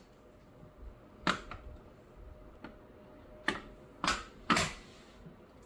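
Sharp plastic clicks as a garage door lock's wall console is pressed and snapped onto its wall-mounted back plate. There is one click about a second in, then three more close together in the second half.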